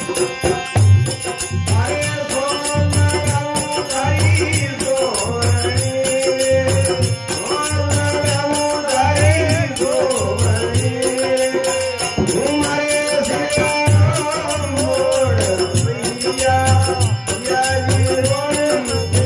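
Folk song with a male voice singing a drawn-out, gliding melody over sustained harmonium notes. A steady drum beat and rhythmic jingling percussion keep time underneath.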